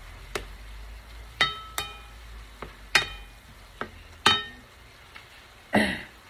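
Shrimp and garlic sizzling in a metal frying pan while a spatula stirs them, with about half a dozen sharp knocks of the spatula against the pan, several ringing briefly, and a louder clatter near the end.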